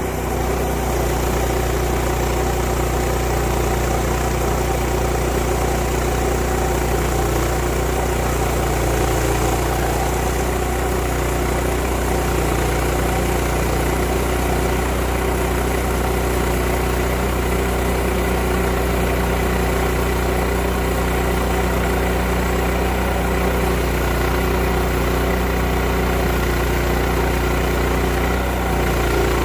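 Woodland Mills portable band sawmill running steadily, its gas engine driving the band blade through a white oak log.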